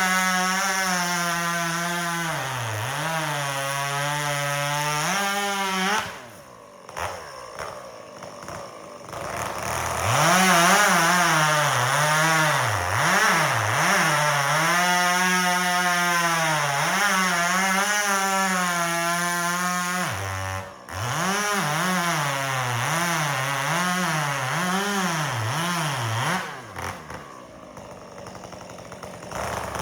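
Two-stroke chainsaw at full throttle bucking firewood, its engine pitch sagging again and again as the chain bites into the log and recovering between bites. The throttle is let off about six seconds in and again near the end, and the saw goes much quieter each time.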